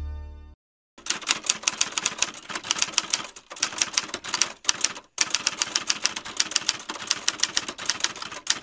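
Typewriter sound effect: a rapid run of key clicks, about seven a second, starting about a second in and broken by two brief pauses, timed to title text typing out letter by letter.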